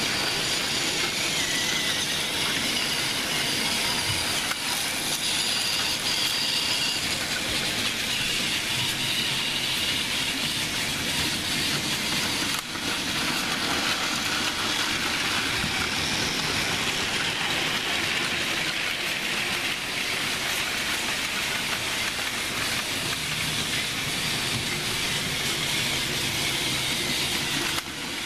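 Battery-powered Plarail toy trains running on plastic track: the steady, high whirring of their small electric motors and gearing, with a faint whine in the first several seconds.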